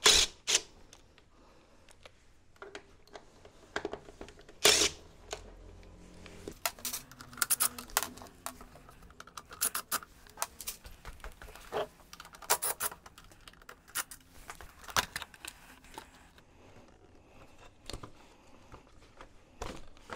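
Scattered clicks, knocks and plastic rattles as a cordless drill-driver takes screws out of a scooter's plastic front cowl and the cowl is worked loose. There is a sharp knock at the very start and another about five seconds in.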